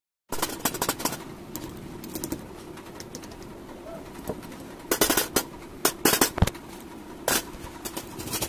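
Sharp clicks and clinks of objects being handled and set down on a steel plate, loudest in quick clusters about five to seven seconds in, over a low steady background sound.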